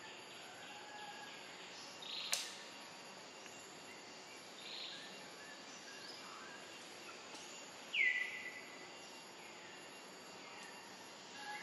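Outdoor ambience with a steady hiss and a few short, faint high-pitched animal calls. A sharp click comes a little over two seconds in. About eight seconds in there is a louder high call that drops in pitch and then holds one steady note for over a second.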